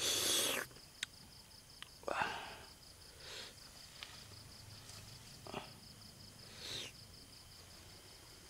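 Crickets trilling steadily in the background, with a few short scrapes and rustles from a spoon working chili sauce out of a stone mortar onto the snails, the loudest at the very start.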